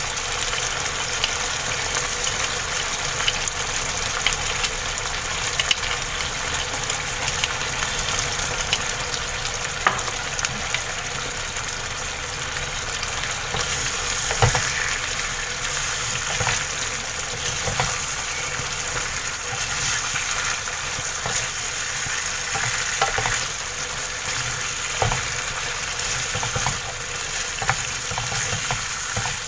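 Tuna frying and sizzling in butter and oil in a pan, stirred now and then, with occasional short knocks against the pan.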